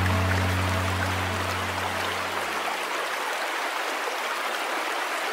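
Steady rush of a fast, turbulent Alpine river, the Adda. A held low musical chord fades out during the first three seconds.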